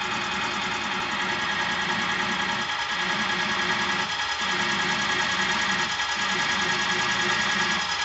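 Machine spindle turning a cutter as it bores the valve-seat register (the pocket for the seat insert) in a cylinder head. It is a steady machining sound with a constant whine, cutting metal into chips.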